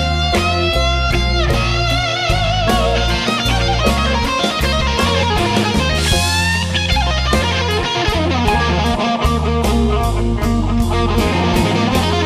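Blues band playing live: a lead electric guitar solo of held, bent notes with wide vibrato over bass and drums.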